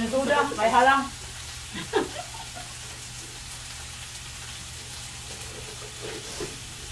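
Pork belly (samgyeopsal) sizzling steadily in a pan on a portable gas burner. A voice talks over the first second, with a short call about two seconds in.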